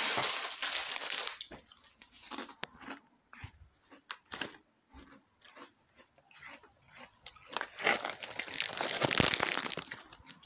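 Crisp packet crinkling and rustling, with scattered short crunches and crackles in between and a louder stretch of rustling near the end.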